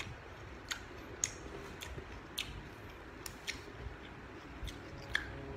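A person chewing crunchy food with the mouth closed: sharp, crisp crunches come at irregular moments, roughly one every half second to second.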